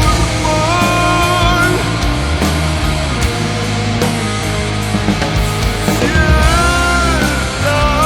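Rock band playing a passage with no words: a sliding melody line over guitars, bass and drums.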